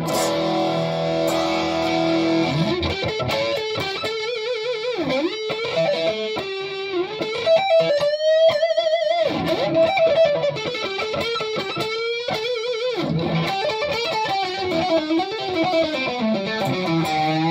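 Solar AB1.6TBS electric guitar, fitted with an EverTune bridge, playing a lead line of held notes with wide vibrato and string bends.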